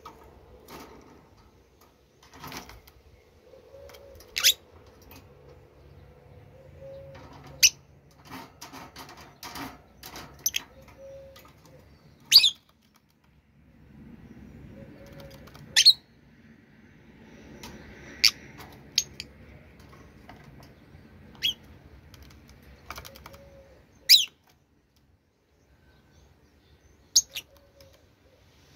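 Short, sharp high-pitched bird chirps, one every few seconds, over a low steady hum.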